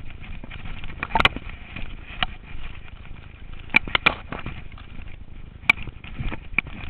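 Mountain bike pushed on foot down a steep, dry trail: footsteps crunching through leaves and loose stones, with a few sharp clicks and knocks from the bike jolting, strongest about a second in, twice around four seconds, and near six seconds.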